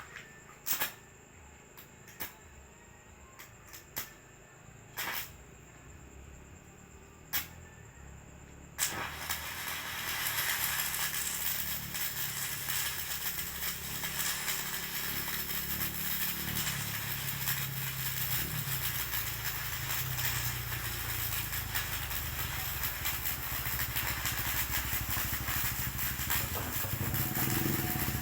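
Electric arc welding on the teeth of a corn sheller: a few sharp separate taps and clicks, then about nine seconds in the arc strikes and crackles and sizzles steadily, with a low hum underneath.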